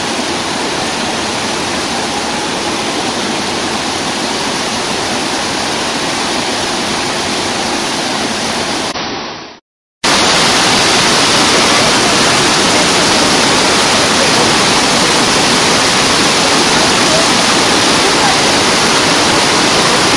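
The Rhine Falls: the steady rush of a large waterfall's whitewater. The sound cuts out for about half a second just before halfway, then returns a little louder.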